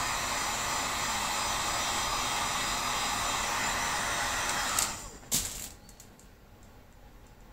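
Electric heat gun blowing steadily while heating a PVC bow limb to soften it for bending. It cuts off just under five seconds in, with two sharp clicks about half a second apart.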